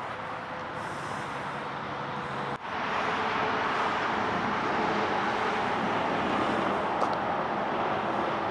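Steady rushing noise of interstate highway traffic, with no single vehicle standing out; it grows louder about a third of the way in.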